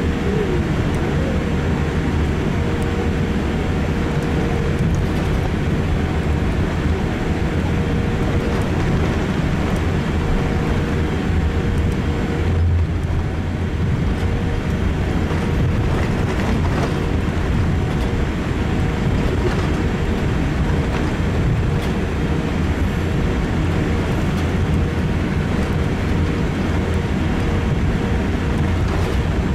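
Steady low rumble and hum inside the cabin of a Boeing 787-8 airliner on the ground after landing.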